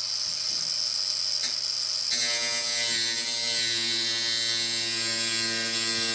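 Electric angle grinder running at speed with a steady high whine. About two seconds in, its cutting wheel bites into thin sheet-metal duct pipe, adding a loud harsh rasp with ringing pitched tones that carries on steadily.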